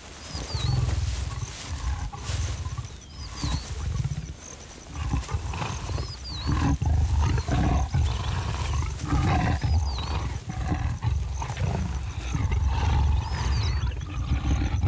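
A mating pair of leopards (Panthera pardus) growling in repeated low bouts, the loud calls they make while mating.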